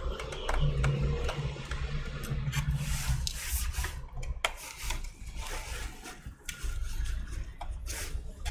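Plastic scraping and rubbing with scattered clicks as the plastic bottom case of a laptop is worked loose. A low hum runs underneath and stops about three seconds in.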